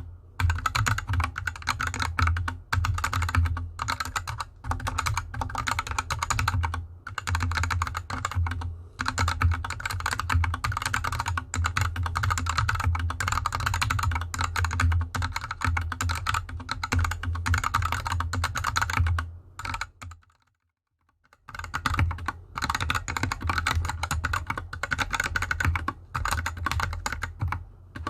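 Fast typing on a GK64X mechanical keyboard with unlubed Gateron Yellow linear switches and DSA keycaps: a dense run of key clacks with brief pauses. The keyboard rests on a desk mat, then after a short break in the sound about two-thirds of the way through, on the bare desk.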